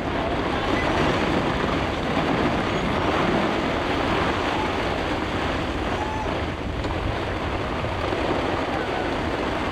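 Microburst storm wind and rain around a sailboat, a loud, steady rush with heavy wind noise buffeting the microphone.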